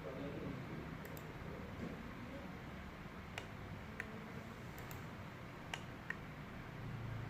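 A few sharp, isolated computer mouse clicks, spaced a second or more apart, over a steady low background hum.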